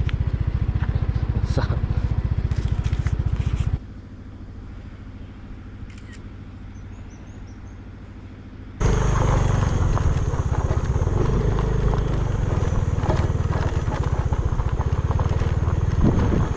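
A vehicle engine running with a steady low pulsing; the sound drops suddenly to a much quieter hum about four seconds in and comes back loud about nine seconds in.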